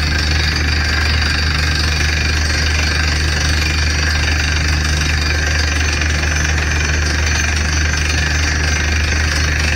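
Truck-mounted DTH borewell drilling rig at work: the steady drone of its engine and air compressor driving the down-the-hole hammer, with a rush of compressed air blowing rock cuttings and dust out of the borehole.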